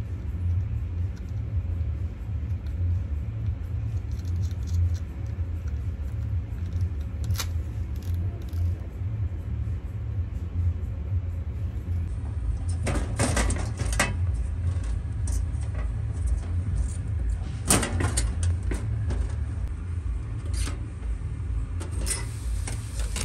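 A steady low rumble, with scattered sharp clicks and crackles from a clear acrylic panel and its protective film being handled, a cluster a little after the middle and a few more near the end.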